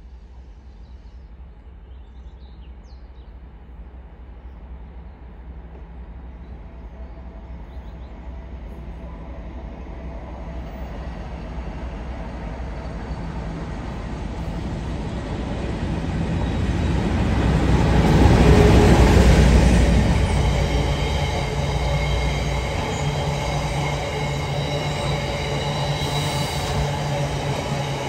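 Class 56 diesel locomotive approaching and passing at speed, its Ruston-Paxman V16 diesel engine growing steadily louder and loudest about two-thirds of the way through as the locomotive goes by. Its train of box wagons then keeps rolling past in a steady rumble with a thin, high wheel squeal.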